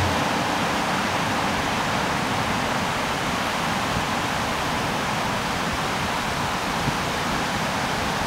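Steady roar of ocean surf, an even wash of breaking waves with no rise or fall in level.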